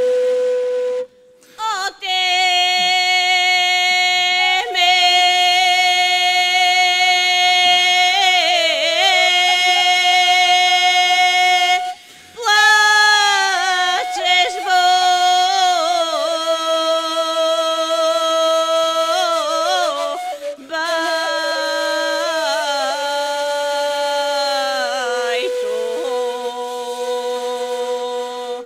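A solo voice sings a slow, drawn-out folk melody in long held notes with short ornamental turns, pausing briefly for breath about four times and dropping lower near the end.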